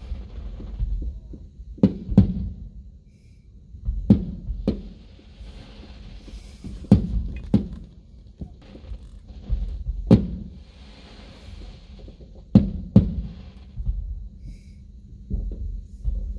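Fireworks aerial shells bursting in deep booms, often two in quick succession about half a second apart, every two to three seconds. Between some of the bursts there is a crackling hiss.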